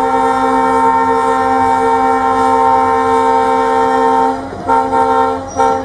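Horn of a WDG-4 (EMD GT46MAC) diesel locomotive: one long steady blast of several tones together that breaks off about four seconds in, then two short blasts near the end.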